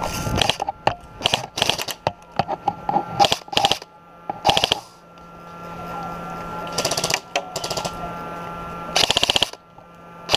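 Short bursts of full-auto airsoft gunfire, rapid even clicking, heard several times, with the most even burst near the end. A steady low hum runs beneath the middle part.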